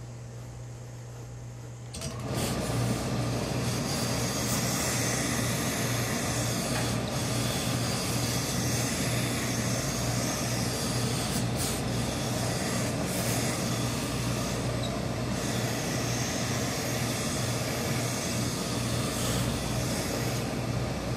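Industrial hose-fed steam iron pressing wool suit trousers: a loud, steady hiss of steam over a low machine hum sets in about two seconds in and runs on, with a few brief louder spurts.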